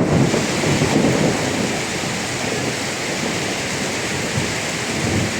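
Heavy rain falling steadily, with a low rumble in the first second or so that then eases off.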